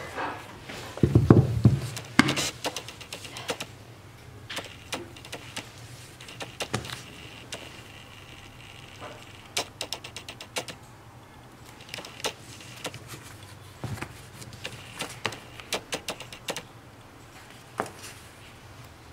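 Hands handling a sneaker and its foam insoles: irregular rustles, taps and clicks, with a louder thump about a second in, over a steady low hum.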